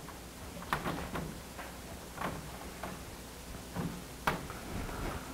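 Chalk on a blackboard as words are written: a string of short, irregular taps and scrapes, the sharpest about four seconds in.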